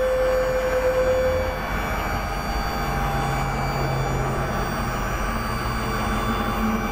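Ford F450 dump truck's diesel engine running steadily, with a mechanical hum and whine. A steady whine stops about a second and a half in, and lower tones come in near the middle and end.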